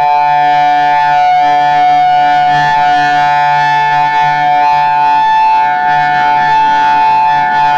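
Outdoor warning siren sounding loud and steady, two close tones held at one pitch.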